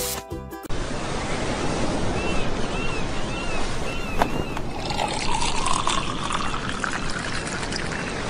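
Background music over steady surf noise. About five seconds in, liquid pours into a bottle, its pitch rising for two or three seconds as the bottle fills.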